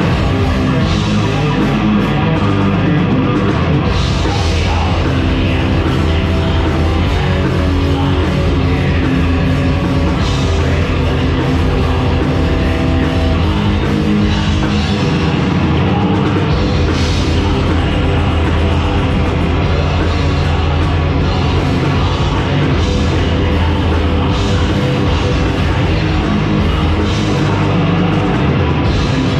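A heavy metal band playing live and loud: distorted electric guitar through Marshall amps over a pounding drum kit, continuous with no breaks.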